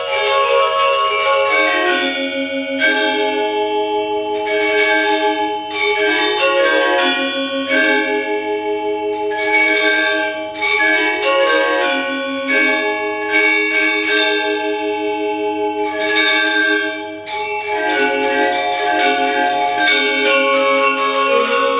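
A Balinese gender wayang ensemble, bronze-keyed metallophones struck with mallets, playing a busy interlocking melody. Many quick notes ring over one another in a bright, shimmering texture.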